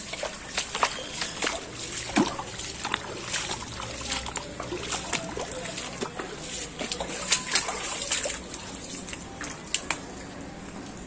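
Shallow floodwater splashing and sloshing, with many short, sharp splashes scattered throughout.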